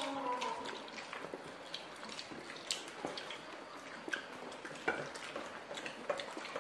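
Scattered light clicks and clinks of people eating at a table: fingers and utensils against plates, irregular, with a few sharper clinks now and then.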